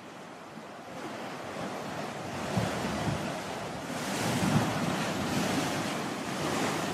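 Surf breaking on a beach, rough from a heavy swell, growing louder about four seconds in, with wind buffeting the microphone.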